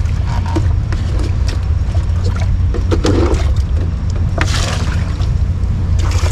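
Water being bailed out of a boat's hull by hand with a cut-off plastic bottle, with two short splashes about three and four and a half seconds in, over a steady low rumble.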